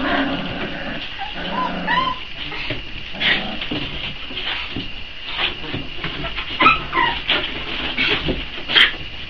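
Four-week-old Boxer puppies whimpering and yelping, a string of short high-pitched cries that rise and fall, as the hungry litter waits to be fed.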